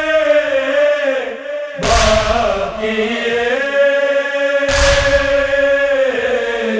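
Male chorus chanting a nauha lament in long held, slowly gliding notes, with two heavy, echoing matam (chest-beating) strikes about three seconds apart.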